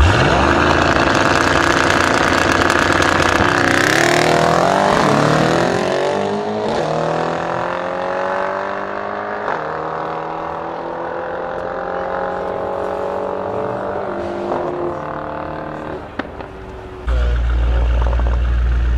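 Mercedes-AMG E63 S's twin-turbo V8 and a Ferrari's V8 launching side by side at full throttle in a drag race, revs climbing and dropping back with upshifts a few seconds apart, fading as the cars pull away. Near the end it cuts abruptly to a steady deep idle of cars waiting at the start line.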